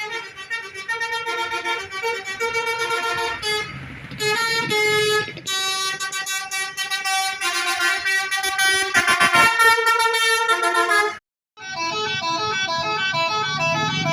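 Multi-tone telolet horns sounding a quick melodic tune of stepped horn notes. The sound cuts off for a moment about eleven seconds in, then resumes as a faster run of alternating notes.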